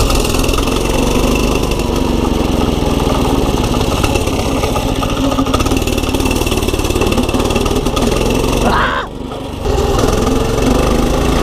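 Small pit bike engine running under way, its pitch rising and falling with the throttle, with wind noise over the microphone. About nine seconds in it revs up sharply, drops away briefly, then picks up again. The rider suspects the engine is flooded.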